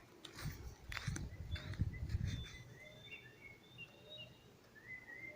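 Songbirds chirping in short, thin, high whistled notes, several of them from about two seconds in. A low rumble runs under the first couple of seconds.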